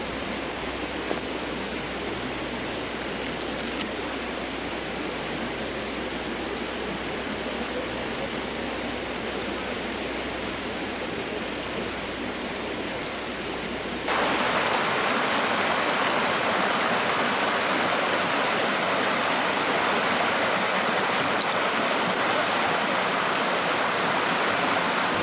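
Creek water running steadily. About halfway through it jumps abruptly louder and brighter and stays there.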